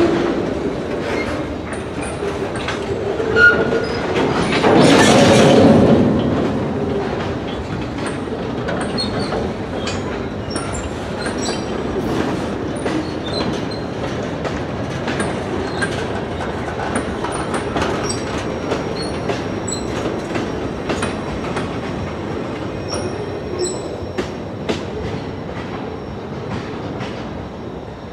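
Train cars rolling past with wheels clacking over rail joints and brief high-pitched wheel squeals. There is a louder rush about five seconds in.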